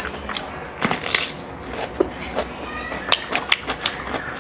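Close-miked bite into a crisp cucumber about a second in, then chewing with wet mouth clicks and smacks.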